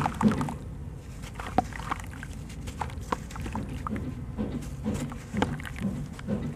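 A sand-cement and charcoal lump crunching and crumbling in the hands, its grit pattering and splashing into a basin of water. It goes as clusters of soft crunches, heaviest right at the start, with scattered sharp crackles between.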